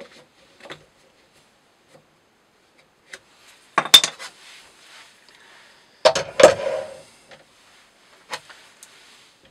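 Metal clanking and knocking as the rope-cutting test rig and its weight plate are handled. There are two loud clusters of clatter, about four seconds in and about six seconds in, with a few light taps between.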